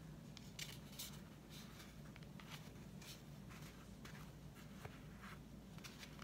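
Faint scattered rustles and light scrapes of hands handling a painted gourd and its felt hat, over a low steady room hum.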